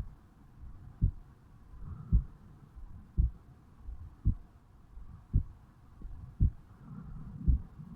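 A human heartbeat recorded over the mitral valve area of a 35-year-old man's chest just after waking. It beats steadily, about one beat a second, each beat a low thump. Near the end a low rumbling noise rises under the beats.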